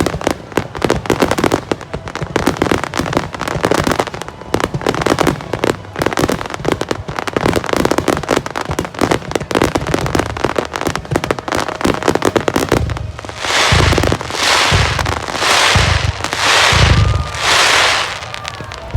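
Aerial fireworks display: a dense, rapid crackling of many small bursts, then from about two-thirds of the way in a run of four or five heavier shells, each a low boom followed by a hissing crackle.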